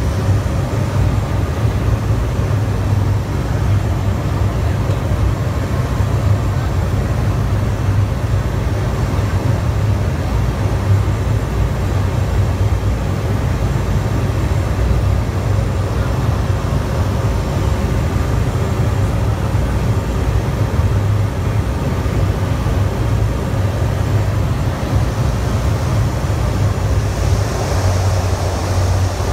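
Cessna 208 Caravan amphibian's single turboprop engine and propeller droning steadily, heard from inside the cockpit on a low approach over water. A higher hiss rises near the end.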